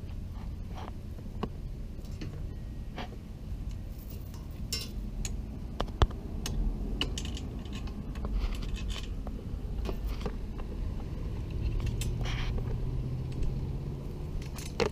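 Scattered light metal clicks, taps and scrapes of J-bolts, washers and wing nuts being fitted and hand-tightened to clamp a cargo rack onto a scooter, with one sharper knock about six seconds in.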